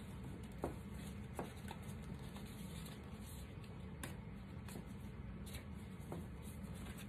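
Faint soft rustling and scattered light clicks of a deck of cards being shuffled by hand, over a steady low room hum.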